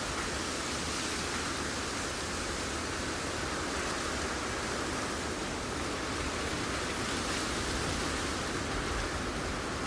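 Steady, even static hiss that does not change.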